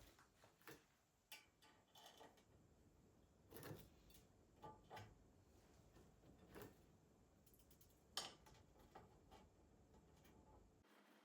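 Near silence with faint, scattered light clicks and taps at uneven intervals, about a dozen in all, the sharpest a little past the middle.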